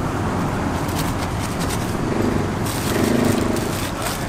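Busy outdoor market din: a steady mix of background noise with faint distant voices and a run of light scraping clicks.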